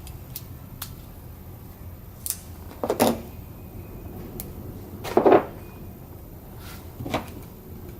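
Small handling sounds from the opened plastic tool housing and electrical tape: scattered light clicks, with two louder knocks about three and five seconds in.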